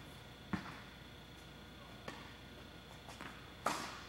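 Tennis ball impacts on an indoor court: a sharp hit about half a second in, a few faint knocks, and the loudest hit near the end, each with a short echo.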